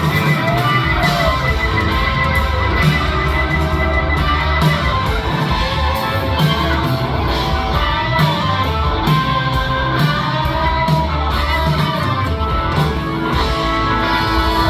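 Rock band playing live in an instrumental stretch with no vocals, an electric guitar lead with bent notes over a full, loud band.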